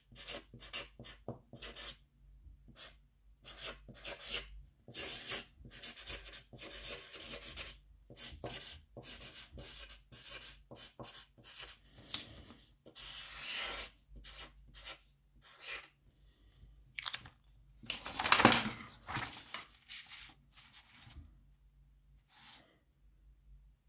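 Felt-tip marker scratching across a sheet of paper in many short, irregular strokes as words are handwritten. About three-quarters of the way through there is one louder rustle of the paper sheet being handled.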